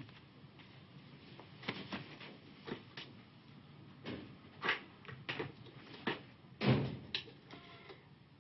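Irregular knocks and clatters of objects being handled on a desk, with a telephone being picked up; the loudest thump comes a little under seven seconds in, and a short buzzing tone follows near the end.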